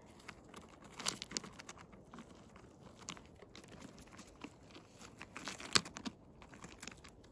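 Faint rustling and crackling of dry grass and twigs as small chanterelle mushrooms are plucked by hand from among rocks. A few sharper snaps stand out, the loudest a little before six seconds.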